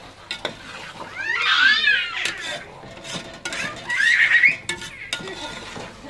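Metal ladle clinking and scraping against an aluminium cooking pot as a thick spinach-and-chicken curry is stirred. Two loud, high-pitched wavering cries stand out, about a second in and about four seconds in.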